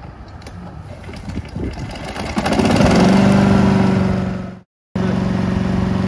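The Honda GCV200 single-cylinder four-stroke engine of an XLK X2RS remote-control mower starts up about two seconds in, then runs steadily at an even speed. The sound breaks off for a moment past the middle, then the steady running resumes.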